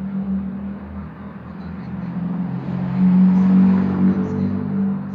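An engine running with a steady low hum, getting louder about three seconds in and easing off near the end.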